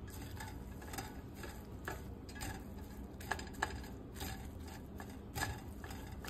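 Metal spatula scraping and tapping against a stainless steel skillet while scrambled eggs and diced potatoes are stirred, giving irregular light clicks and scrapes.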